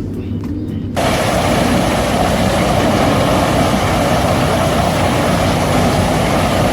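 Heavy wood-processing machinery running: a steady low engine hum, then about a second in a much louder, steady rushing machine noise starts abruptly.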